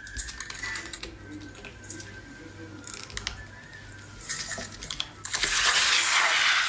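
Small clicks of a plastic cola bottle being opened and handled, then about five seconds in a sudden loud hiss as the cola erupts, foaming and spraying out of the bottle's neck.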